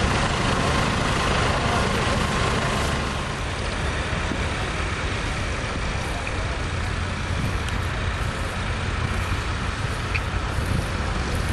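Tractor engine running steadily, with a rushing noise over it that eases a little about three seconds in.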